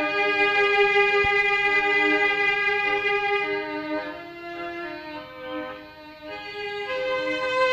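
Violin playing a slow melody of long bowed notes. It grows softer a little past the middle and swells again near the end.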